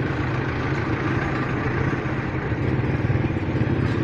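Kawasaki Fury 125 motorcycle's engine running steadily at low speed in slow, stop-and-go traffic, heard from the handlebars, with other vehicles' engines idling close by.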